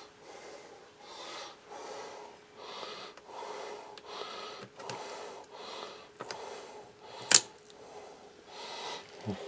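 Rapid, rhythmic breathing close to the microphone, about two breaths a second, with a single sharp click a little past seven seconds in.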